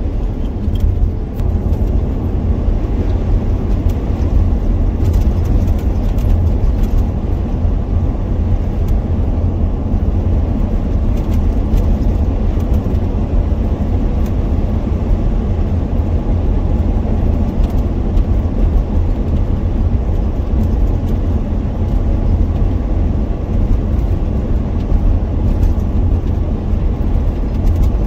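A van driving along, heard from inside: a steady, low road and engine rumble that holds even throughout.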